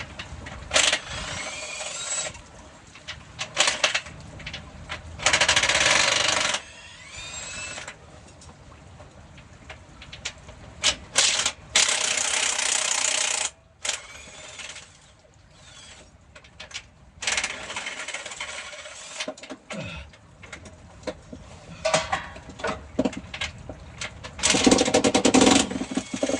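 Cordless impact wrench running in repeated bursts of about a second each, its whine sweeping in pitch, as transmission bolts are taken out. Sharp metallic clicks and clinks of tools come in between the bursts.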